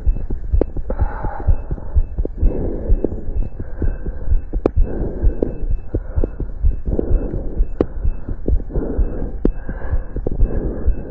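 Heartbeat heard through a stethoscope during exercise: a quick, regular run of low thumps. Bursts of rustling noise and a few sharp clicks come from the chest piece moving against the body.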